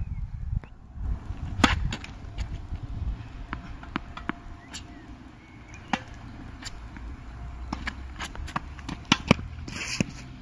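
Tennis ball struck by rackets and bouncing on a hard court during a rally: a string of sharp pops and softer ticks, with a loud hit about six seconds in and two loud pops close together near the end, over a low steady rumble.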